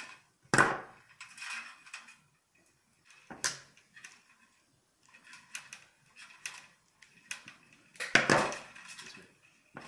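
Combination pliers working on wires over a sheet-metal tube-light fitting: a handful of sharp metallic clicks, snips and scrapes with short quiet gaps between them. The loudest come about half a second in and near the end.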